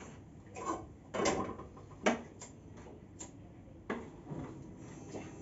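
Irregular sharp clicks and light knocks, about six in all, as a gas stove burner is being lit under a pot.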